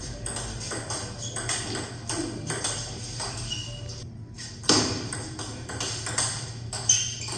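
Table tennis rally: the ball clicking off bats and table in quick succession, with two louder hits about two seconds apart in the second half.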